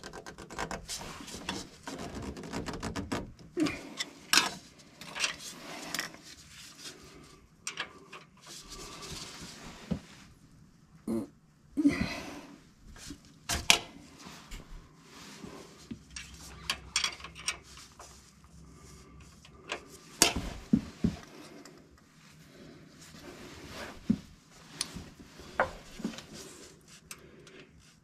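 Box-end wrench clicking and knocking against the valve adjuster lock nut and rocker arm of an air-cooled VW flat-four as a stubborn lock nut is worked loose, in scattered sharp metallic taps.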